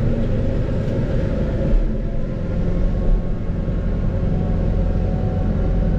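Fendt 412 tractor's diesel engine running steadily as a low drone, heard from inside the cab while it drives over the silage clamp.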